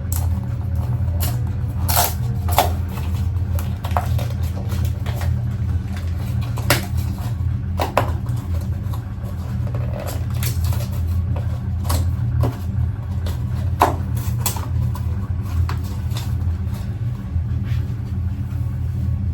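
Steady low background rumble with scattered clicks and taps of plastic packaging being handled as a bottle of washing-machine cleaner is opened; the sharpest clicks come about 2, 8 and 14 seconds in.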